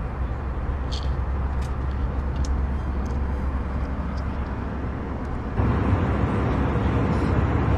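Steady low rumble and hiss of an airliner cabin, with a few faint clicks. About five and a half seconds in, the noise grows louder and fuller.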